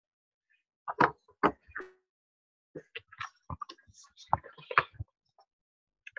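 Scattered short knocks and clicks, a few about a second in and a busier cluster a little after the middle, heard over video-call audio that drops to dead silence between them.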